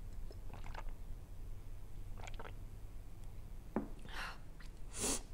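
Mouth and swallowing sounds as milk is drunk, a few soft clicks, then two breathy exhales through an open mouth near the end, the second one sharp and the loudest, cooling the burn of spicy noodles. A faint low hum sits underneath.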